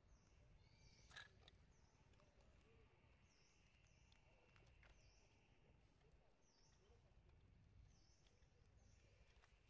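Near silence: faint outdoor ambience with a short, high, faint chirp repeating less than a second apart, and a single faint click about a second in.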